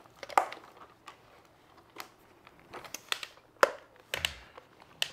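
Handling noise from toys: a few separate sharp clicks and taps, spread irregularly over a few seconds, with light rustling between them.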